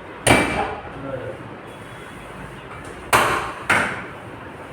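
Three sharp knocks: one about a quarter-second in, then two in quick succession about three seconds in, each dying away quickly.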